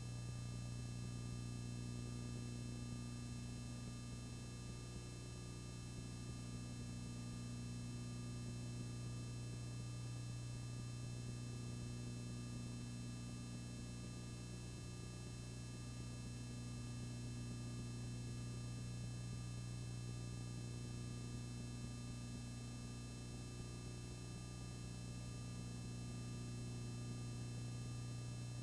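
Steady low electrical hum with a constant hiss, and no other sound.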